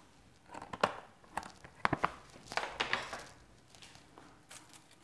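Kitchen things being handled off-camera: a run of small clicks and taps with short paper-like rustles, mostly in the first three seconds, then only faint handling noise.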